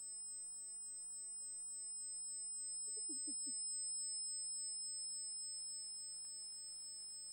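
Quiet, with two steady high-pitched tones throughout and a brief soft sob from a crying woman about three seconds in.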